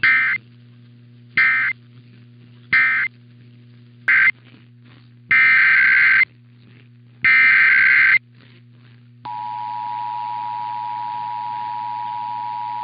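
Emergency Alert System signalling: three short screeching digital data bursts (the end-of-message code), then three more bursts, the last two about a second long, which carry the next alert's header. About nine seconds in, the steady two-tone EAS attention signal starts and holds for about four seconds.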